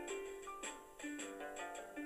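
Light instrumental background music: a plucked-string melody of short notes stepping up and down.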